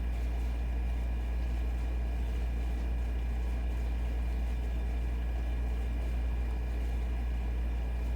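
Air conditioner running steadily: a constant low hum with a faint steady whine above it.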